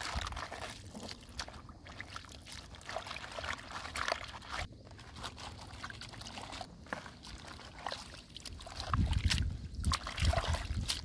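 Hands washing napa cabbage leaves in a plastic basin of water: irregular sloshing, small splashes and trickling as the leaves are rubbed and lifted out. Low rumbles come in near the end.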